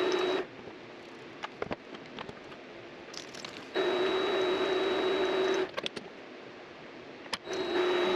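A power tool's electric motor running in short bursts: it cuts off about half a second in, runs again for about two seconds in the middle, and starts once more near the end, each time with a steady hum and a high whine. Small clicks and taps of metal parts being handled fill the gaps.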